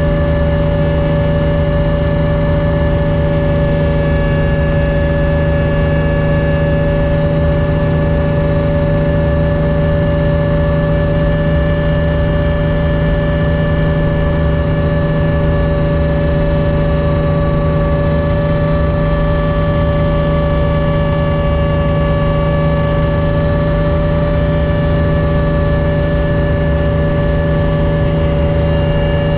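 Cabin noise of a Hummingbird helicopter in level flight: the engine and main rotor run steadily, as a heavy low drone with several steady high-pitched whining tones over it, heard from inside the cabin.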